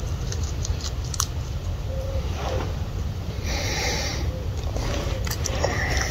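Spoon stirring noodles in a metal camping mug, with a few sharp clicks and a brief hiss over a steady low rumble.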